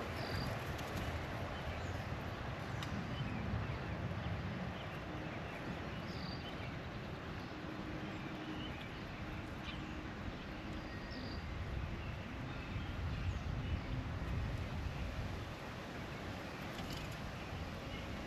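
Outdoor ambience: wind rumbling on the microphone over a steady hiss, with a few short, high bird chirps scattered through.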